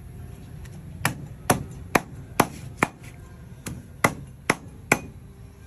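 A cleaver chopping a skinned snake into pieces on a wooden chopping block: nine sharp chops, about two a second, in a run of five and then a run of four after a short pause.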